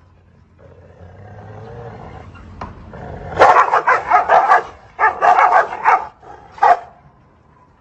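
Two large dogs confronting each other across a gate: a low growl that builds, then rapid aggressive barking in two quick bursts, and one last bark about a second later.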